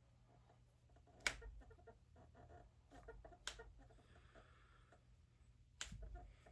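Finger and knuckle joints cracking: three sharp pops, the first about a second in and the loudest, the others near the middle and near the end, with fainter little clicks in between.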